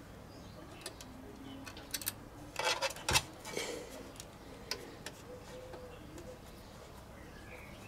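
Scattered clicks and a short clatter of hard plastic and metal parts being handled on a Corsair One PC's case, loudest about two and a half to three and a half seconds in.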